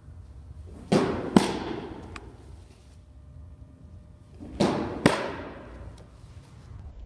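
Two softball change-ups smacking into a leather catcher's mitt, each pitch heard as two sharp hits about half a second apart, ringing briefly off the walls of a large indoor training room.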